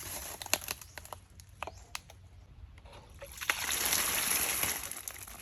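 Scattered small clicks and knocks, then about a second and a half of splashing, sloshing water.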